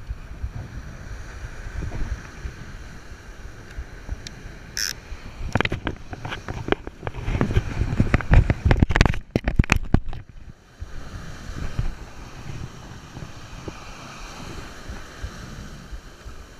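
Wind buffeting the microphone over surf washing on the beach, with a run of loud knocks and scrapes from about five to ten seconds in.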